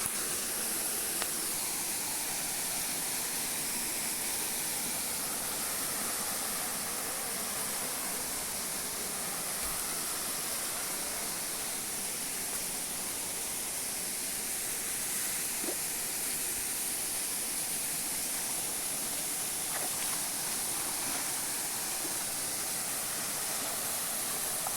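Waterfall rushing, a steady unbroken hiss of falling water.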